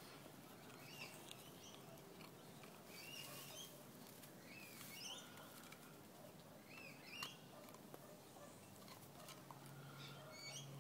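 Faint gnawing and clicking of a four-month-old American Staffordshire Terrier puppy's teeth on a large bone, with one sharper click about seven seconds in. Birds chirp faintly in the background, and a low steady hum comes in near the end.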